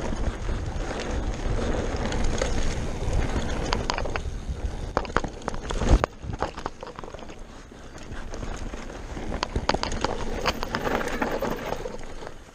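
Enduro mountain bike ridden fast down a dirt trail: wind rushing over the camera microphone, tyres running over dirt and stones, and the bike rattling and clicking over bumps, with a sharp knock about six seconds in.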